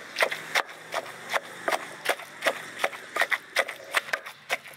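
Wooden pestle pounding cooked saba mackerel flesh in a clay mortar: a steady run of dull knocks, about three a second.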